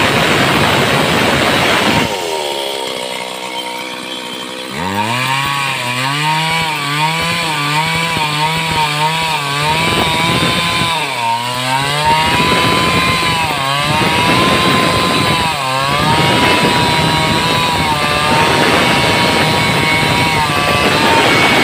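Stihl two-stroke chainsaw ripping lengthwise along a log under load. About two seconds in the engine pitch drops away, then climbs back a few seconds later and wavers up and down rhythmically as the chain bites in the cut, before settling to a steadier high pitch.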